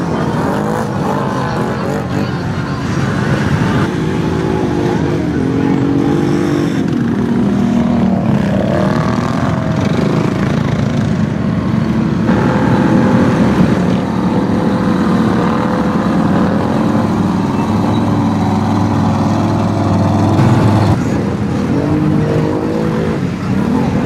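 Engines of off-road side-by-sides and ATVs running and revving, their pitch rising and falling, with the engine sound changing abruptly several times.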